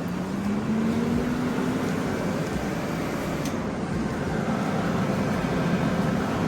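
Multi-process TIG, stick and plasma-cutting welding machine powering up: its cooling fan spins up with a rising hum over the first couple of seconds, then runs steadily with a whooshing hum.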